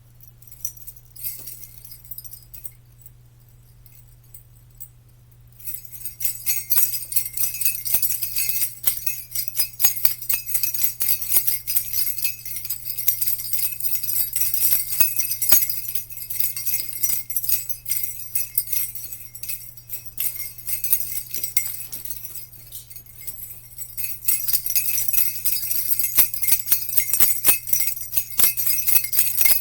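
Jingle bells shaken: a few light jingles at first, then continuous rapid jingling from about six seconds in, thinning briefly about two-thirds of the way through before picking up again.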